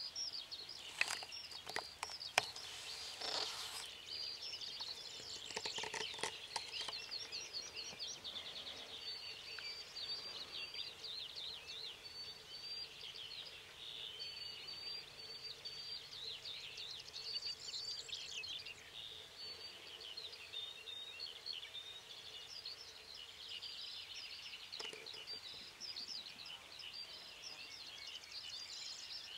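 Wild songbirds singing in a dense, continuous high chirping chatter, with a few sharp clicks about one to two and a half seconds in.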